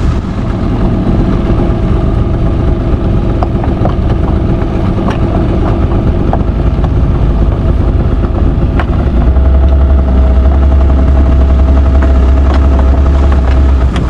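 A fishing boat's engine running steadily at low speed while the net is paid out, with a strong low rumble that grows heavier about nine seconds in and a few light knocks.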